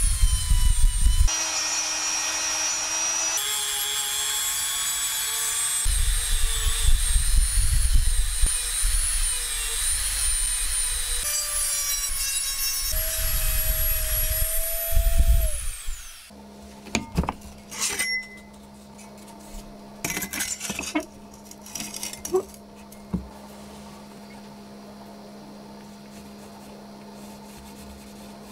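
Dremel rotary tool running at high speed, its whine dipping and wavering under load as it grinds the steel saw blade and sands the wooden handle, with a grinding rasp from the contact. About halfway through it winds down and stops, leaving a few light scrapes and taps over a faint steady hum.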